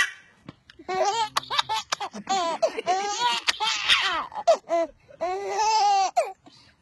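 A baby laughing in repeated bursts, starting about a second in and stopping shortly before the end.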